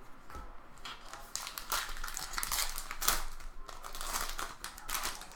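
Baseball cards being flipped through by hand: quick papery rustles and flicks, one after another.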